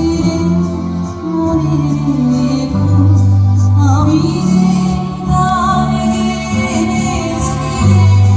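Music with a singing voice over held low notes that change every second or so.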